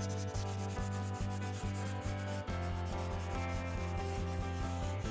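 Water-soluble Aquapastel crayon scribbling on sketchbook paper in quick, repeated strokes, a dry rubbing scratch, with soft background music underneath.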